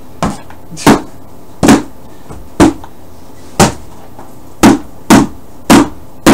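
A rubber double-sided dildo is whacked repeatedly against a sturdy cardboard box, about nine sharp thwacks roughly a second apart. The box holds and does not break open.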